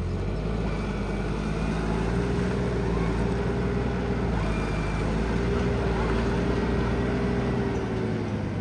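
A diesel engine running steadily and loudly, with a whine over it; it eases off near the end.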